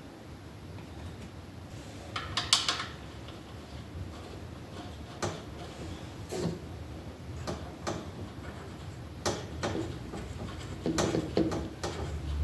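Metal tools and engine parts being handled: scattered clicks and clinks, with a brief rattling clatter about two seconds in.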